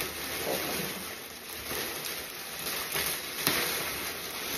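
Clear plastic wrapping crinkling and rustling as it is pulled off a pair of black feathered costume wings, with one sharp crackle about three and a half seconds in.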